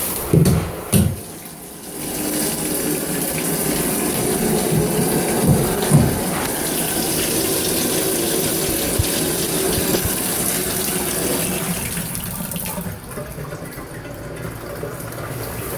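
Handheld shower sprayer running water over a dirty vacuum cleaner air filter, a steady hiss that eases off about thirteen seconds in. A couple of short bumps come in the first second or so.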